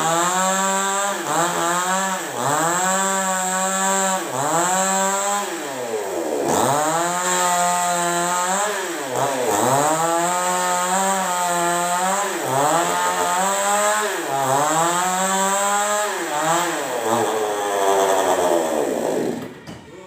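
Two-stroke chainsaw cutting through a tree trunk. The engine pitch dips again and again as the chain bogs in the wood, then climbs back each time, every two to three seconds. The engine drops away near the end.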